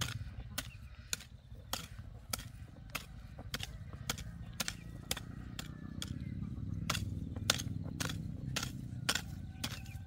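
Short-handled hoe chopping into soft soil in a steady rhythm, just under two strokes a second, as the ground between young corn plants is weeded and loosened.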